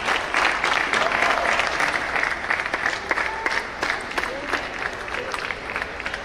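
Crowd of spectators applauding, many hands clapping at once, with the applause dying down toward the end. A few voices call out over the clapping.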